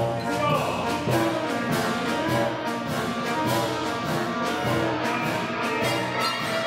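Wind orchestra playing together, brass prominent over the woodwinds, in a full, sustained passage.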